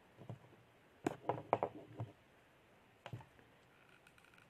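Handling noise of craft work on a wooden table: a cluster of light clicks and knocks about a second in and another near three seconds, as a hot glue gun and a wooden skewer are picked up and moved into place.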